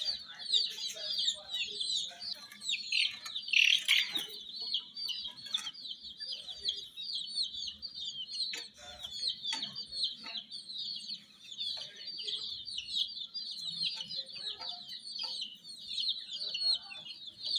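A group of baby chicks peeping continuously, many short high chirps overlapping, with scattered light clicks among them.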